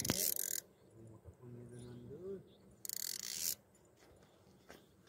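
Fishing reel whirring in two short spells, the first ending about half a second in and the second about three seconds in. A short low hum with a rising end comes between them.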